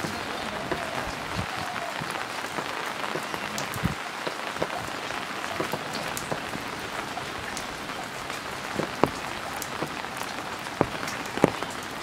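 Steady rain falling on a wet yard, a continuous hiss with scattered sharper drops striking close by.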